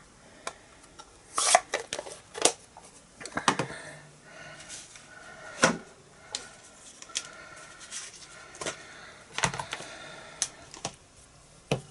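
Rubber-stamping tools being handled on a craft desk: irregular light clicks and taps, about a dozen, as an ink pad is shut and stamp blocks are picked up and set down, with some soft rustling.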